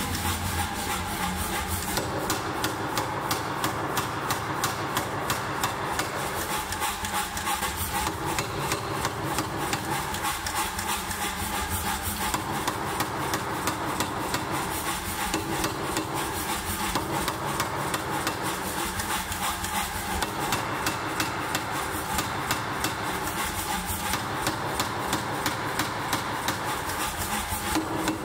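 Power hammer striking a glowing bar of hot steel in rapid, steady repeated blows, with the machine's motor running underneath.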